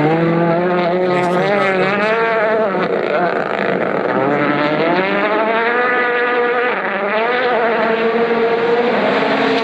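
Rally car's turbocharged four-cylinder engine at full throttle on a stage, revving up and dropping back as it changes gear, its pitch rising and falling several times.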